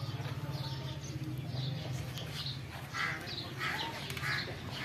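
Small birds chirping repeatedly in short, separate calls, over a steady low hum.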